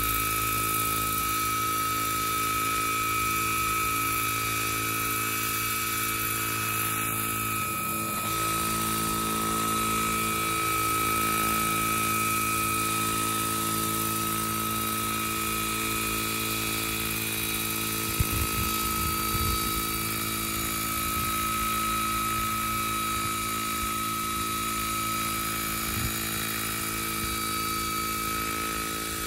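Vario scale model Chinook radio-controlled helicopter hovering, its tandem rotors and drive giving a steady, unchanging whine with one strong high tone. A couple of faint brief clicks come about two-thirds of the way through.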